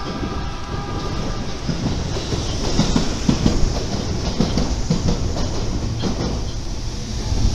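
Tsurumi Line electric train passing out of view, its wheels clattering over rail joints in a low rumble that grows louder. A cluster of steady whining tones sounds for the first second and a half.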